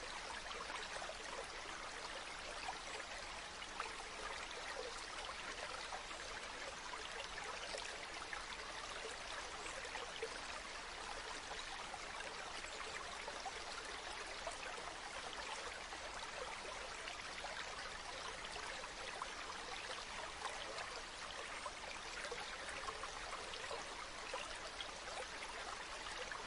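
Mountain stream running steadily over rocks, a continuous rush of water with small trickling splashes.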